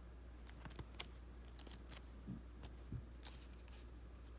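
Faint, scattered clicks and a couple of soft taps from trading cards being handled and flipped through.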